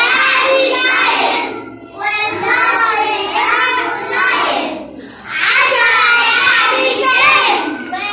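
Young children singing a nursery song in English, in sung phrases with brief breaks between them.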